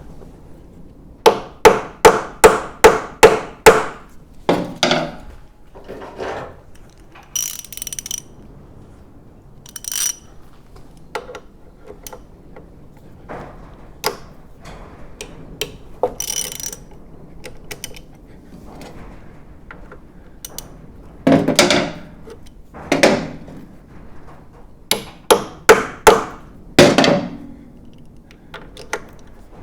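A ratchet clicking in two quick runs of about seven loud clicks each, one near the start and one near the end, with scattered metallic clinks and knocks in between.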